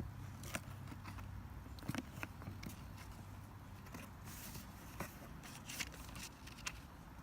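Faint rustling and scattered small knocks and clicks of a cardboard box and its contents being handled and unpacked, with a brief burst of rustling about four seconds in.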